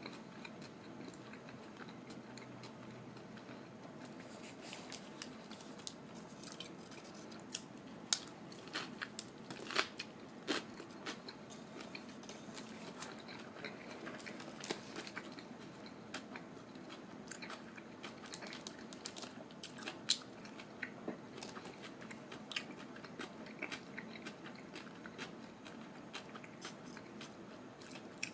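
Close-up chewing and biting of a fish sandwich, with irregular crisp crunches and wet mouth clicks, a few of them sharper and louder than the rest.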